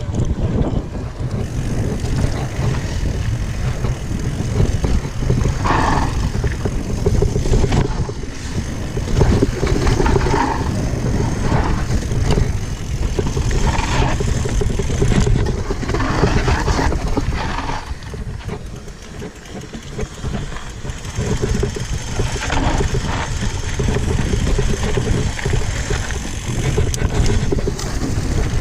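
Wind buffeting the microphone over a steady rumble and rattle from a bike rolling fast down a rough downhill trail. There is a brief lull about two-thirds of the way through.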